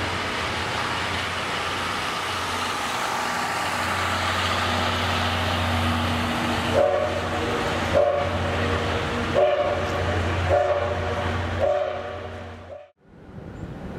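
12 series passenger coaches rolling past with a steady rumble. About seven seconds in, the hauling D51 steam locomotive's whistle sounds five short blasts, about a second apart. The sound then fades out near the end.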